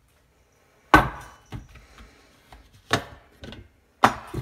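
Several sharp knocks and clunks of kitchen things being handled, the loudest about a second in and another strong one near the end.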